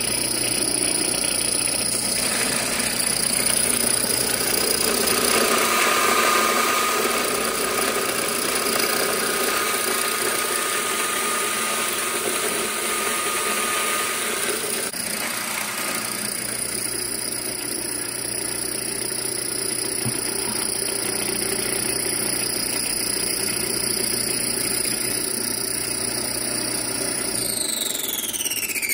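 Electric grain mill running steadily as it grinds dry grain. Near the end it is switched off, and its high whine falls in pitch as the motor spins down.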